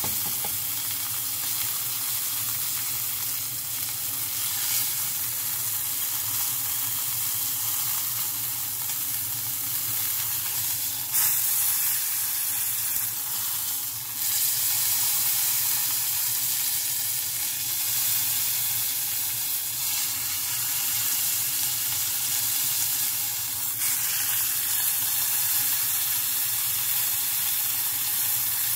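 A piece of beef round searing in olive oil in a frying pan, sizzling steadily. It briefly gets louder about eleven seconds in.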